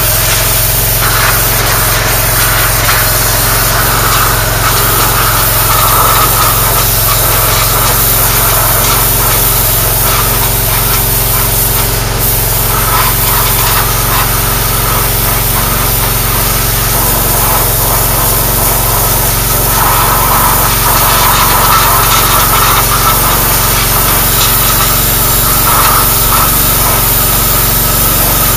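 Pressure washer running steadily, its jet hissing against the rusty steel stringers of a 1965 Chevy pickup bed to strip off loosened grime and scale. The spray's hiss swells and fades as the wand sweeps along the metal, over a constant low hum from the machine.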